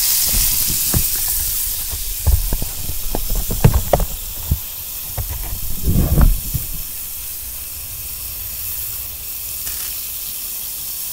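Mushroom pieces sizzling in butter in a pan over a small fire: a steady hiss, a little stronger in the first two seconds. Between about one and six seconds in come a run of sharp knocks and rustles, loudest around six seconds.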